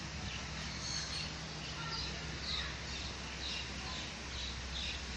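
Small birds chirping: short, high chirps repeating about every half second.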